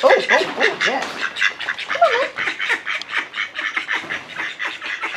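Several domestic ducks quacking: a fast, continuous run of short quacks, with a few louder rising-and-falling quacks at the start and about two seconds in.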